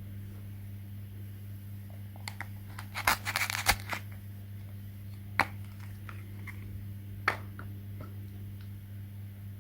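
Small objects being handled by hand: a quick flurry of crinkles and clicks about three seconds in, then two single sharp clicks, over a steady low hum.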